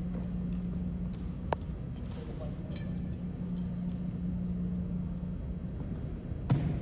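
Drill-team movement noises over a steady room hum: a sharp metallic click with a short ring about a second and a half in, a few faint clinks, then one loud thud near the end, as of a drill rifle or boot striking the floor.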